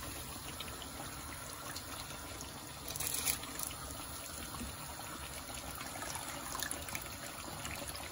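Pot of water at a rolling boil for parboiling rice, bubbling steadily, with a short louder rush of water about three seconds in.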